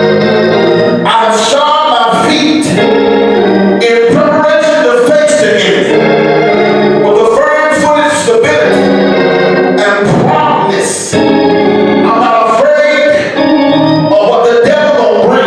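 Gospel singing with organ accompaniment: voices singing over sustained organ chords.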